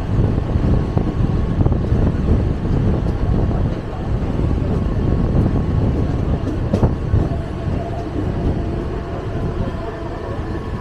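Mumbai suburban local train running, heard from inside the carriage: a steady low rumble and rattle of the wheels on the track, with one sharp clack about seven seconds in.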